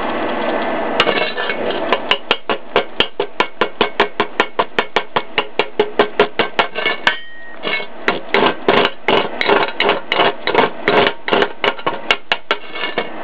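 Rapid hammer strikes on steel, about five a second, with a short pause about seven seconds in: chipping the flux slag off a fresh gasless flux-core MIG weld bead.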